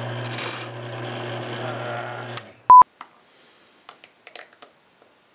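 Drill press motor running steadily while a Forstner bit bores shallow holes in wood, cutting off about two and a half seconds in. A short, loud, high electronic beep follows, then faint clicks of a small screwdriver turning tiny screws into a metal sawtooth hanger.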